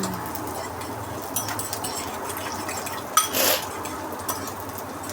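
Kitchen utensils knocking and clinking against cookware during cooking: scattered light clicks, then a sharper ringing clink about three seconds in followed by a brief rushing scrape.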